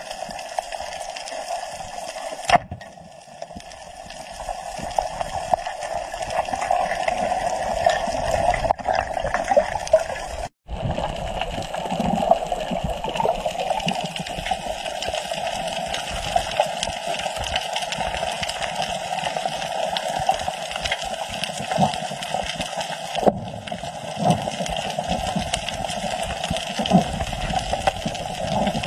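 Underwater ambience picked up by a camera beneath the sea: a steady, muffled rushing hiss with fine crackling. It changes abruptly a few times and drops out for an instant about ten seconds in.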